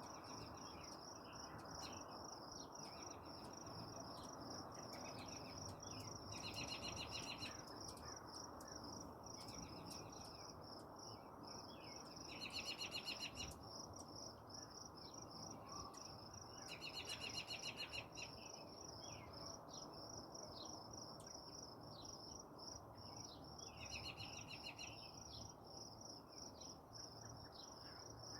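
Insects chirping in a faint, steady, high-pitched pulsing chorus. Louder rapid trills of about a second each break in four times: near a quarter of the way through, twice around the middle, and once near the end.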